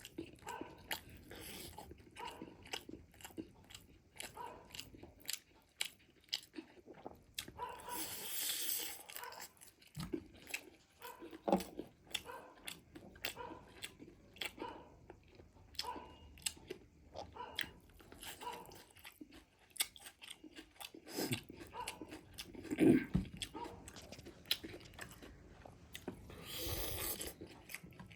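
Close-up chewing and biting of crispy fried chicken leg pieces: irregular crunches and wet chewing clicks, with a few brief louder rustly spells.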